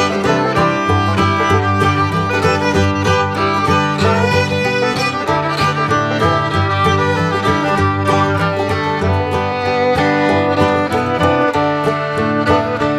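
Bluegrass-style background music with fiddle and plucked strings, playing steadily.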